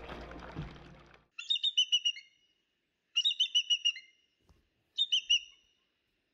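A bird calling three times, each call a quick run of high chirps, the last run the shortest. The closing music fades out under the first second.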